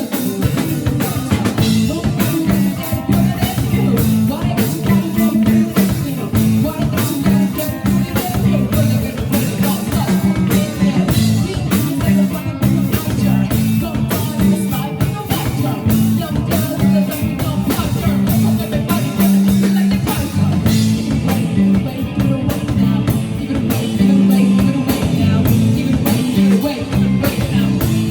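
A live rock band playing a song, with drum kit, electric guitar and singing.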